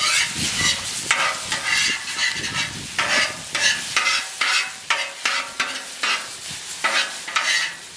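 A metal spatula scraping and turning sea urchin roe and chopped vegetables on a hot steel flat-top griddle, in sharp scrapes about twice a second over a steady sizzle of frying.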